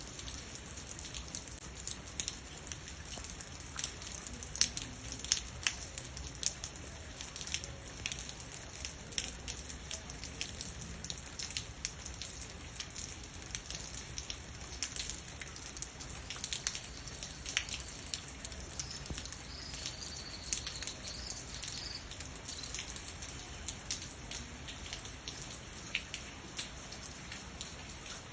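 Raindrops dripping: many irregular, scattered light ticks over a steady high hiss.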